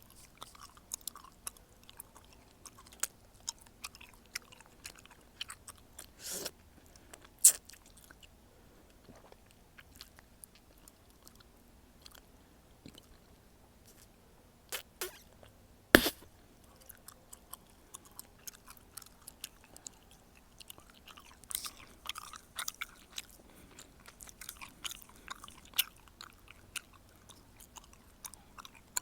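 Close-miked chewing gum: irregular wet smacks and clicks of the mouth working the gum, with two much louder sharp snaps, one about seven seconds in and one about sixteen seconds in, and busier chewing in the last third.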